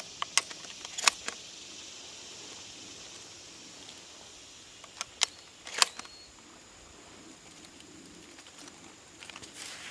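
Sharp metallic clicks of a semi-automatic 12-gauge shotgun being handled and loaded: shells pushed into the magazine and the action worked. The clicks come in two clusters, a few near the start and three about five to six seconds in, the last the loudest, over a steady high hiss.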